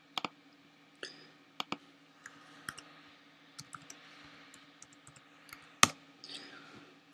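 Computer keyboard keys clicking as a password is typed: about a dozen irregular, separate keystrokes, the loudest one about six seconds in, over a faint steady hum.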